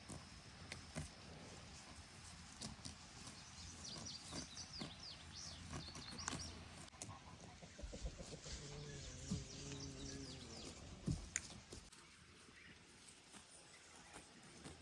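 Quiet farmyard ambience with small birds chirping a few seconds in and scattered small clicks. About halfway through comes a single low, wavering bleat from a farm animal, lasting about two seconds.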